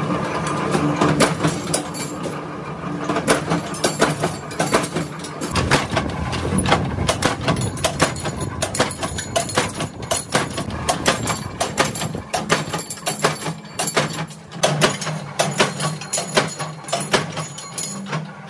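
Flywheel-driven mechanical power press running with a steady hum, its ram striking steel rod in repeated sharp metal blows as the rod is fed through the tooling, with clanks of loose rod against the machine.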